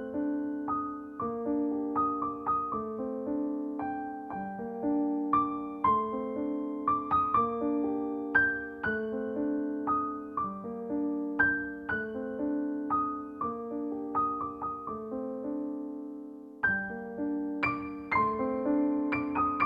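Background piano music: a slow melody of struck notes over sustained chords.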